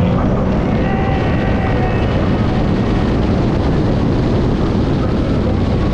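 Jet ski engine running under a loud, steady rush of wind and water noise.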